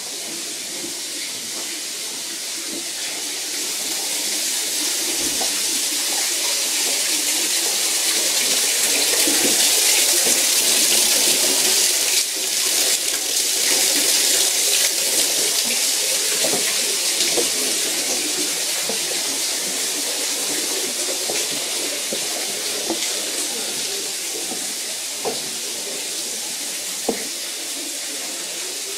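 Steady rush of water falling and splashing into a pool. It grows louder over the first ten seconds or so, then slowly fades.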